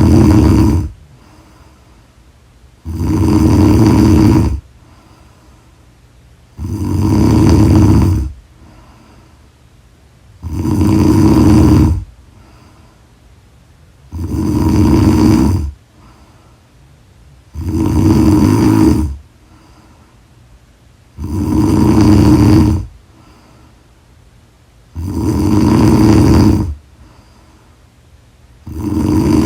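A woman snoring loudly and regularly: one long snore about every three and a half to four seconds, each lasting about a second and a half, with quieter gaps between.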